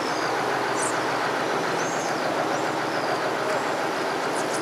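Boat engine running steadily, a continuous even rumble.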